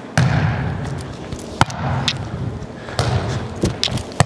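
Volleyball struck with forearm passes and bouncing on a gym floor: a string of sharp thumps over a few seconds.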